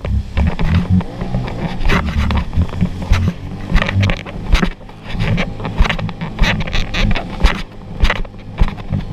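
Jet ski running at speed over choppy water: wind buffets the microphone in a heavy, fluttering low rumble, with frequent sharp, irregular slaps and splashes as the hull hits the waves.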